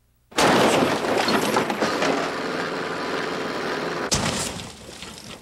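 A passenger van crashing down from a bridge. A sudden loud crash about a third of a second in is followed by a few seconds of dense crunching and tumbling, then a second sharp impact near the end before it dies away.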